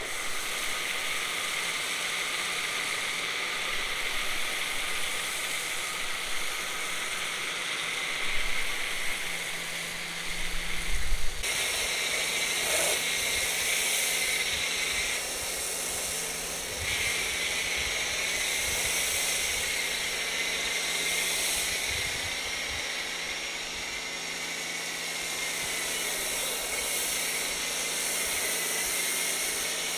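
Foam cannon on a Sun Joe electric pressure washer spraying foam onto vinyl siding: a steady hiss of spray. A couple of dull thumps come around ten seconds in, and from about eleven seconds in a steady low hum joins, the pressure washer's electric motor running.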